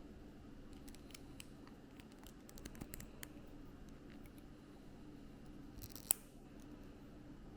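Small plastic building-block pieces and their packaging being handled: scattered light clicks, a quick cluster of them about two to three seconds in, and one sharp click about six seconds in.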